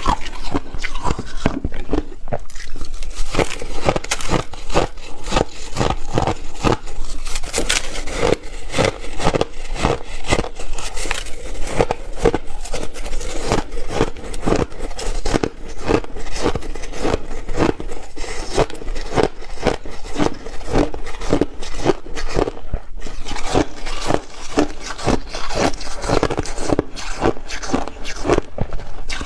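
Ice being bitten and chewed: a steady run of sharp crunches, several a second.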